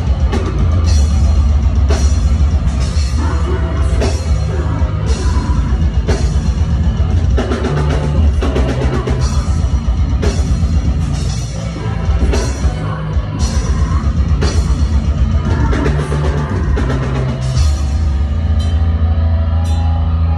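Deathcore band playing live at full volume: distorted guitars and a heavy bass over pounding drums, with regular cymbal crashes about once a second.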